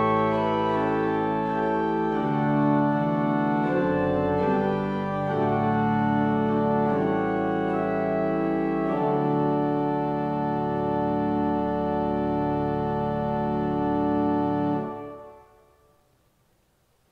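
Pipe organ playing full sustained chords that move slowly from one to the next, ending on a final chord that is released about fifteen seconds in and dies away in the room's reverberation.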